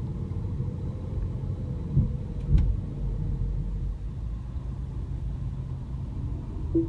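Low, steady rumble of the MINI Cooper S Countryman's engine and tyres heard from inside the cabin as it rolls slowly at low speed, with a couple of soft low thumps about two and two and a half seconds in.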